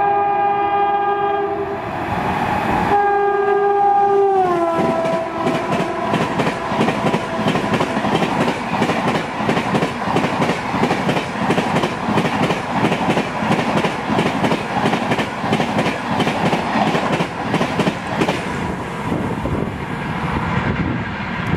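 Electric locomotive's horn blowing twice as an LHB superfast express approaches; its pitch drops as the engine passes. The coaches then rush by at speed with a fast, steady clickety-clack of wheels over rail joints, which cuts off as the last coach clears.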